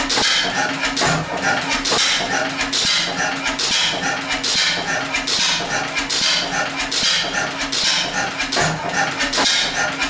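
A 1911 Deutz E3 gas engine running: a steady, rhythmic mechanical clatter of quick knocks and clicks, with a hissing puff repeating about every three-quarters of a second.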